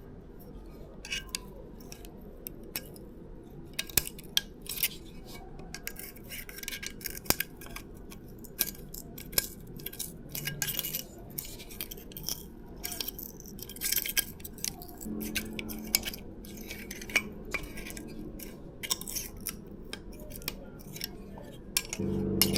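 Irregular small metallic clicks and clinks from tools and bicycle headset parts being handled and fitted onto a suspension fork.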